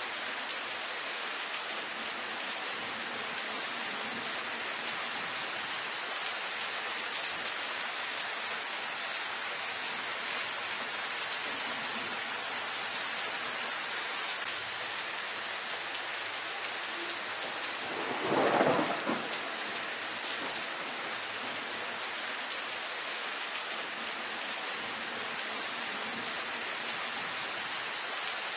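Steady rain falling on dense foliage, an even hiss of drops on leaves. About two-thirds of the way through, a louder swell lasting about a second and a half rises over the rain and dies away.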